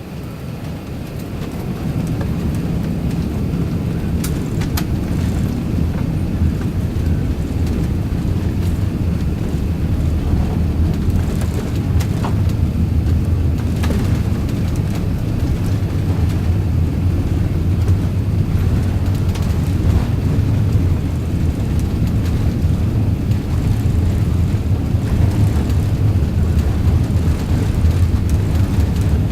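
Airbus A380-861 heard from inside the cabin during takeoff: a deep, steady rumble from its Engine Alliance GP7200 engines at takeoff thrust. It grows louder about a second or two in, then holds steady.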